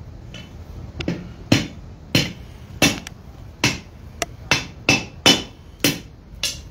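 Blacksmith's hand hammer striking a red-hot 3/8-inch square iron bar over the horn of an anvil to roll a loop, about a dozen ringing blows that come slowly at first and quicken in the second half. The small curl at the bar's tip has been quenched hard so that it can take the blows.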